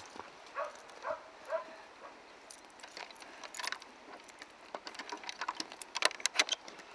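A bunch of keys jangling, with metal clinks against a gate's bolt latch as it is unlocked and slid open; the clinking comes thick and fast near the end.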